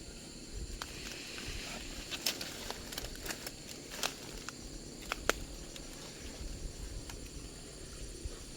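Scattered sharp clicks and snaps, the loudest three about two, four and five seconds in, over a steady high insect hum.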